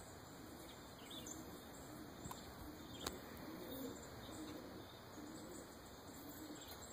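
Domestic pigeons cooing faintly, in short low phrases repeated at irregular intervals over a steady background hiss, with a small click about three seconds in.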